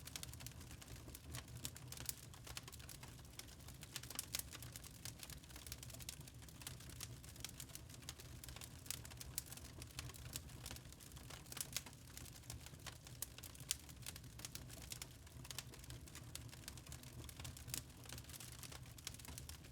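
Wood fire crackling in a fireplace: irregular sharp pops and snaps, a few louder than the rest, over a low steady rumble.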